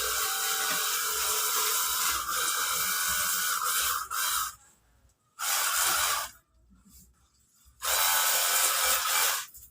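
Cordless battery-powered pressure washer running: its motor whines steadily over the hiss of the spray for about four and a half seconds, then stops. It then fires two more short bursts of spray, about a second and about two seconds long.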